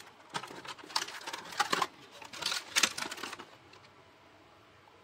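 Clear plastic packaging tray crinkling and crackling as it is handled and lifted out of a cardboard box, for about three seconds.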